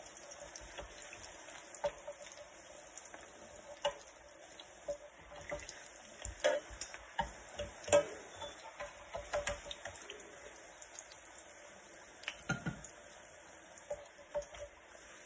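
Tortillas frying in a skillet with a faint, steady sizzle, over irregular clicks and scrapes of a metal fork and spatula against the pan as they are turned and pressed. The loudest clicks come about six and a half and eight seconds in.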